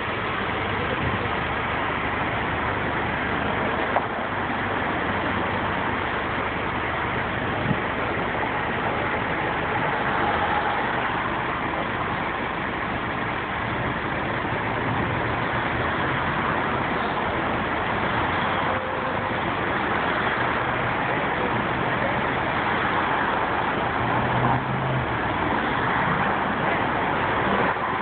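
Steady street noise of motor vehicles, with an engine running close by, likely the idling truck being filmed.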